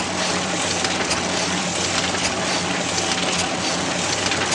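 Printing press running at speed: a steady, dense mechanical clatter over a low hum.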